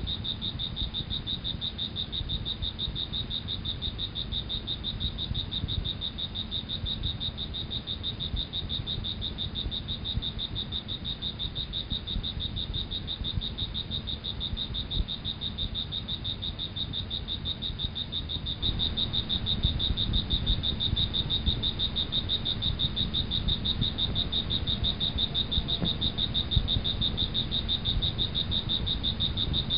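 Crickets trilling: a steady, high-pitched, rapidly pulsing chirr that never breaks. A low rumble runs underneath and grows louder about two-thirds of the way through.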